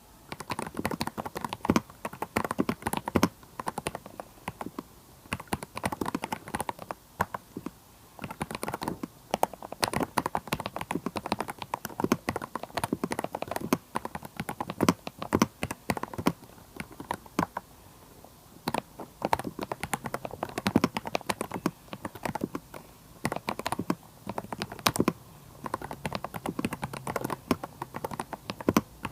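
VGN V87 mechanical keyboard with unlubed KTT Kang White v3 linear switches being typed on: runs of quick keystroke clacks a few seconds long separated by short pauses, with some strokes standing out louder.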